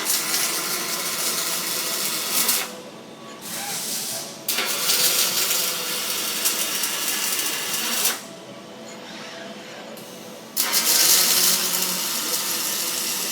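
Robotic arc welder welding a chair frame: three crackling, hissing weld runs of a few seconds each, with short pauses between them as the torch moves to the next joint. A steady machine hum runs underneath.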